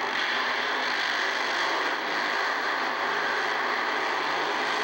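Nitro funny car's supercharged engine running hard through a burnout, its rear tires spinning: a loud, steady noise with no let-up.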